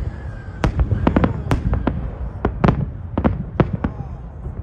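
Salute fireworks bursting: a rapid, irregular string of about a dozen sharp bangs over a continuous low rumble.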